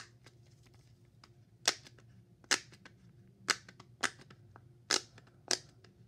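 Dimple poppet fidget toy being pressed, its bubbles popping with six loud, sharp pops at uneven intervals and a few softer clicks between them; it is really loud.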